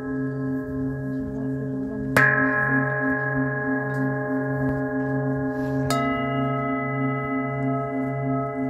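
Metal singing bowls struck twice, about two seconds in and again near six seconds, each strike ringing on in long overlapping tones. The deepest tones pulse slowly in a steady wavering beat.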